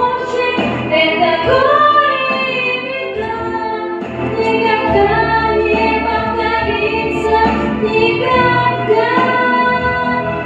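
Song with a singing voice holding long notes that glide from pitch to pitch, without clear words, over instrumental backing.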